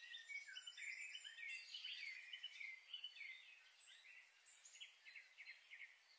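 Faint chirping of small birds: many short, falling chirps overlapping in busy chatter, thinning out about four seconds in, over a steady hiss.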